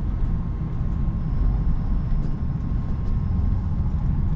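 Steady low rumble of a heavy goods lorry's diesel engine and tyres, heard from inside the cab while driving slowly. A faint thin steady tone sits above the rumble.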